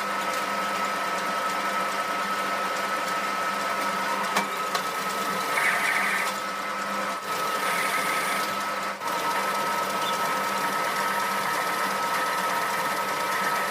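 Homemade metal lathe running steadily with a constant whine while it cuts a thread with a single-point tool. Two short scraping cuts come about 6 and 8 seconds in, with a few sharp clicks along the way.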